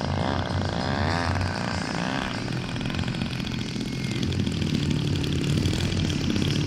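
Engine and propeller of a giant-scale radio-controlled aerobatic plane, the pitch wavering up and down as it flies low past for the first couple of seconds, then running more steadily as it rolls on the grass.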